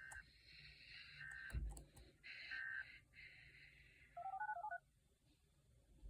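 Faint electronic beeps: a few short single tones, then, about four seconds in, a quick run of touch-tone (DTMF) dialing beeps.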